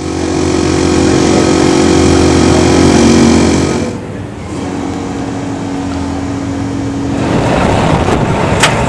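Ferrari F430 GT2 race car's V8 engine idling steadily in a pit garage. About four seconds in, it drops to a quieter, steady note, and a rush of noise builds near the end.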